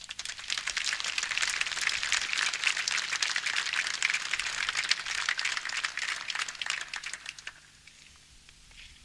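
Seated audience applauding: a dense clatter of hand claps that thins out and stops about seven and a half seconds in.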